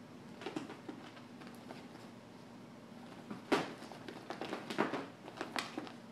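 A cat's paws scrabbling and thumping on the floor as it spins chasing its tail: scattered short knocks and scuffs, busiest in the second half.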